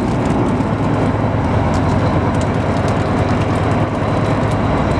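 A fishing boat's engine running steadily, a continuous low-pitched mechanical sound, with faint light ticks over it.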